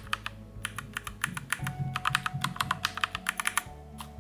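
Keys on a MACHENIKE K600G mechanical keyboard being pressed in quick succession, Gateron G Pro brown switches alongside a swapped-in yellow switch, about six clacks a second at the busiest, stopping about three and a half seconds in.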